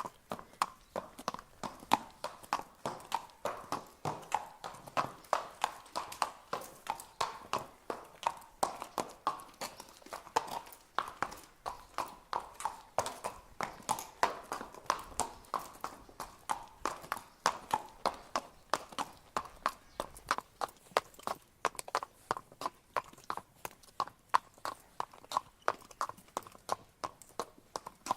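A horse walking, its hooves clip-clopping on hard ground in a steady, even rhythm of several hoof strikes a second.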